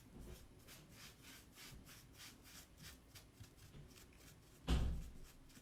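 Quick rubbing strokes, about four a second, as wax stain is worked over and off a wooden canvas frame. A single thump comes near the end.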